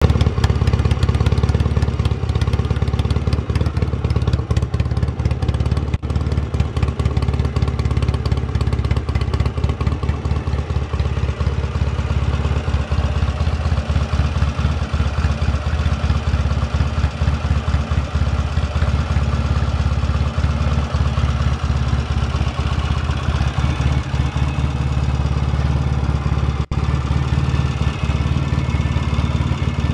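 1975 Norton Commando 850 MK3's air-cooled parallel-twin engine idling steadily through its chrome silencers.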